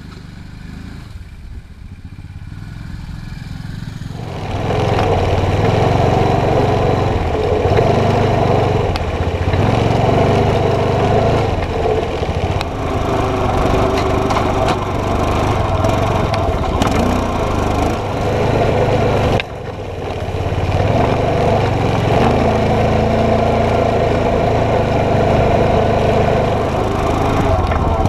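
Four-wheeler (ATV) engine running steadily while it pulls a disc harrow through the soil. It grows louder over the first four seconds, and drops briefly about two-thirds of the way through.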